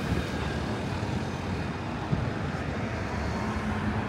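Steady road traffic noise, with vehicles passing along the roadway.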